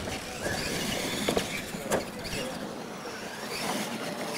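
Radio-controlled retro monster trucks racing on a dirt track: a faint whine of electric motors rising and falling under the hiss and crunch of the tyres on dirt, with two sharp knocks about a second and two seconds in.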